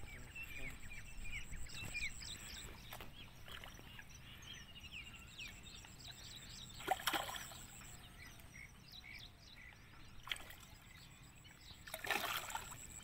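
Hooked mrigal carp splashing at the water's surface as a landing net is worked around it, with a brief splash about seven seconds in and the loudest splash near the end. Small birds chirp throughout.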